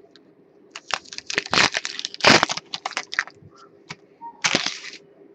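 Crinkling and tearing of a trading-card pack's foil wrapper as it is opened: a quick run of crackly rustles over the first few seconds, then one more near the end.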